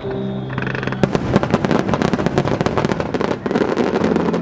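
Aerial firework shells bursting in dense, rapid crackling, a thick run of sharp pops starting about a second in. A steady low hum sits under the first second.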